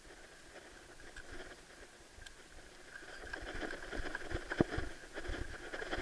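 Knocks and rustling as a large cod is handled in the bottom of a small boat: quiet at first, then busier from about halfway, with one sharper knock a little later.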